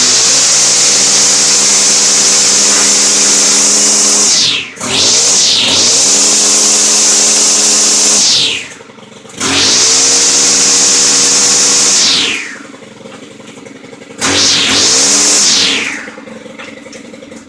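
Small engine of a Stihl handheld shaft tool, just cold-started in sub-zero cold, revved hard at full throttle. It drops back and rises again about every four seconds, sits lower for a couple of seconds late on, then revs once more, winds down and cuts off at the very end.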